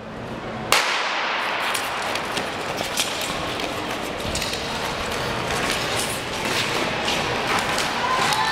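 A starting gun cracks once, sharply, under a second in, sending the short-track speedskaters off the line. After it comes a steady wash of noise with many small clicks from skate blades on the ice and the rink.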